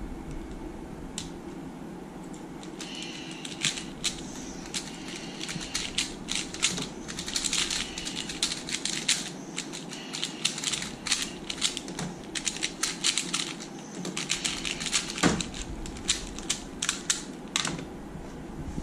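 Two plastic 3x3 speed cubes, one of them a Mini Valk3M, being turned fast: a dense run of quick clicks and clacks, with one louder knock near the end.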